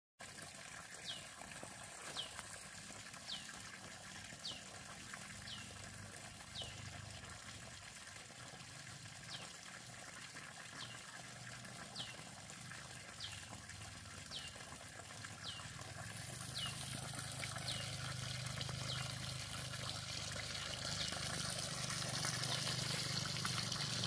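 Water pouring from a plastic pipe outlet and splashing onto rocks and into a flooded rice paddy, a steady trickling splash that grows louder over the last third. A short, high falling call repeats about once a second through most of it.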